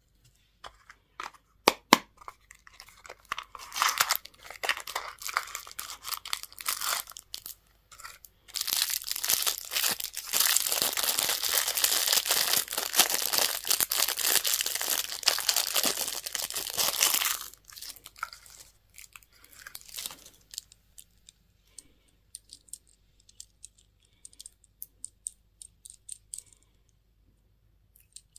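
Candy packaging torn open and crinkled by hand. Scattered clicks and rustles lead into about ten seconds of continuous tearing and crinkling in the middle. Only sparse light ticks and taps follow.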